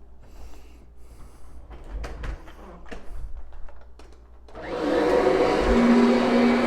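Kirby upright vacuum cleaner switched on about two-thirds of the way in, its motor spinning up within half a second to a loud steady run. Before that, only faint clicks and handling noises.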